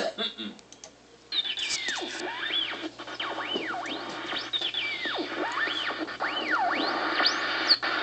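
Opening of a Santa video message playing from a screen's speakers: a few clicks and knocks in the first second, then music starts with a steady hiss and repeated whistle-like glides that swoop up and down.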